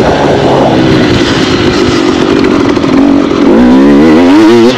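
2016 KTM 250 XC's two-stroke engine running hard under the rider, loud and steady. Near the end its pitch wavers rapidly up and down several times as the revs rise and fall.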